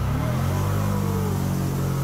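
Can-Am Commander side-by-side's engine running at a steady, low pace, its pitch dipping slightly at the start and then holding even.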